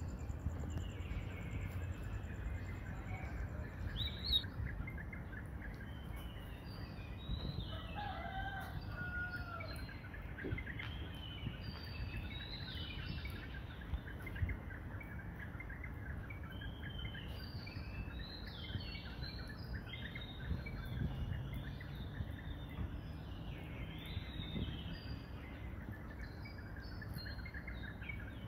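Outdoor background of many short, high bird chirps throughout, with one drawn-out falling call about eight seconds in, like a rooster crowing.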